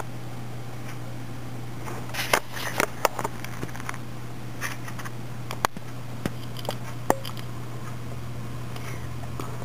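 Soft rustles and small clicks of hands working yarn and a yarn needle, securing a lock stitch close to the microphone, scattered through the middle, over a steady low hum.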